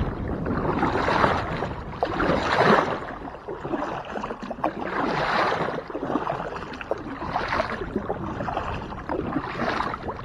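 Double-bladed kayak paddle stroking through lake water, a splashing swish every couple of seconds as the blades dip on alternate sides.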